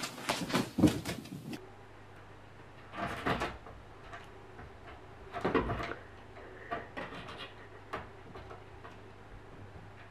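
Bumps and knocks, then a cat leaping onto the top edge of an open wooden door: a loud knock as it lands, followed by lighter clicks and rattles from the door as it clings on.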